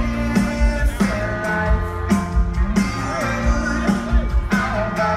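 Live pop-rock band music played over a PA and heard from the crowd: a steady drum beat, guitar and a male lead vocal.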